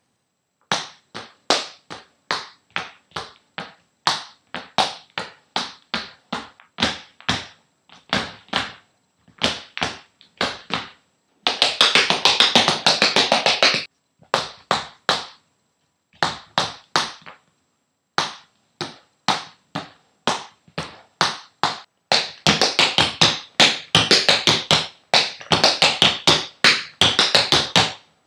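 Tap shoes striking a wooden floor with no music: single taps about two a second, broken by two long flurries of rapid taps, one about eleven seconds in and another through the last six seconds.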